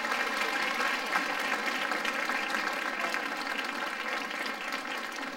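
Audience applauding steadily after a dance performance ends.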